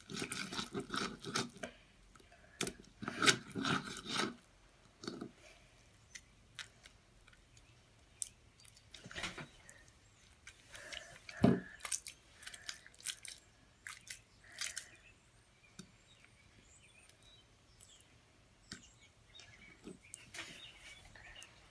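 Clear glue slime being stirred and squished with a spoon in a plastic bowl as the borax activator is worked in: irregular wet squelches and small clicks, with one louder knock about halfway through.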